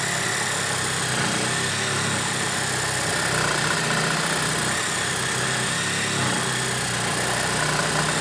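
DeWalt 12V Xtreme cordless hacksaw (compact reciprocating saw) running steadily with its blade sawing lengthwise through a 2x4. The long rip cut is a load that is a bit too much for the saw.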